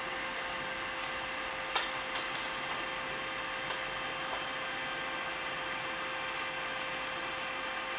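Three sharp metallic clinks in quick succession, each with a short high ring, then a few light ticks, over a steady electrical or mechanical hum.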